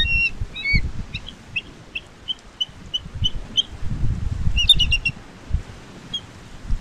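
Bald eagle calling from its nest: a run of short, thin, high piping notes, about three a second, with a quicker burst of notes near the middle. Wind rumbles low on the microphone underneath.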